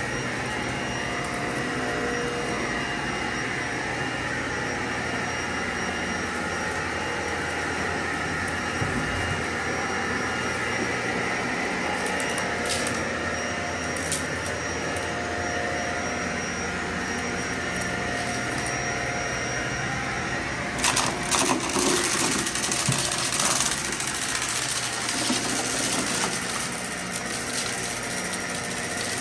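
Vacuum cleaner running steadily in slow passes over carpet, its motor hum unchanging. About two-thirds of the way through comes a few seconds of sharp crackling and clicking as debris is sucked up.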